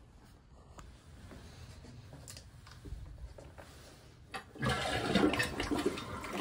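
Test flush of a newly installed Toto toilet: a few faint handling clicks, a sharp click of the flush lever about four seconds in, then a rush of water swirling into the bowl that stays loud to the end.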